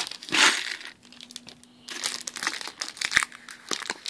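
Stiff plastic crinkling and crackling with a couple of sharp clicks as a plastic Lego Pick-a-Brick cup full of bricks is handled and its snap-on lid worked open.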